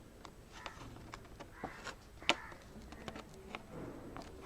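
Faint, scattered small plastic clicks and handling noises as fingers work a laptop keyboard's ribbon cable into its connector on the motherboard.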